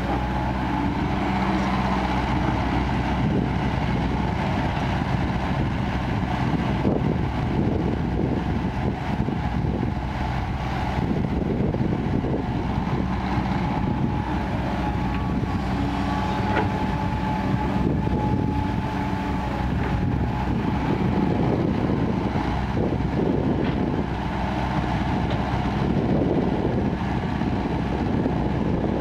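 KOBELCO crawler excavator's diesel engine running steadily under load as it digs and swings soil into a dump truck, a thin steady whine over the engine hum, with a few faint knocks.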